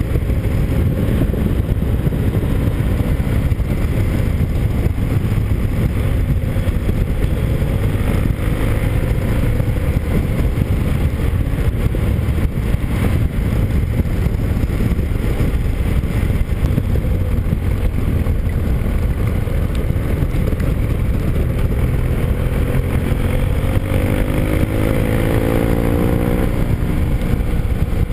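Motorcycle engine running while riding, under heavy wind noise on the microphone; the engine note rises as the bike accelerates, once about a third of the way in and again near the end.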